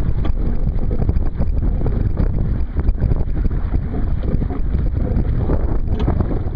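Heavy wind rumble on the microphone over water rushing and slapping against the hull of a Sunfish sailboat under way in choppy water.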